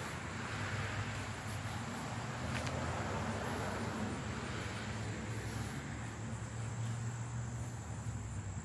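Outdoor ambience of insects, crickets by their sound, chirring steadily and high-pitched, over a low steady hum.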